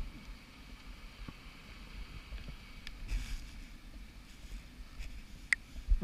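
Muffled underwater noise heard through a camera housing on a scuba dive: a steady low rumble with faint hiss, a brief rush of noise about three seconds in, and a sharp click shortly before the end.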